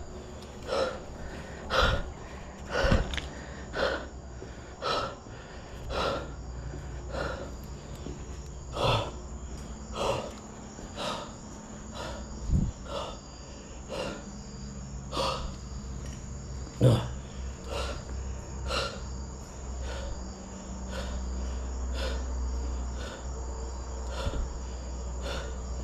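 Footsteps, about one a second, as someone walks across hard floors, over a steady high chirring of crickets.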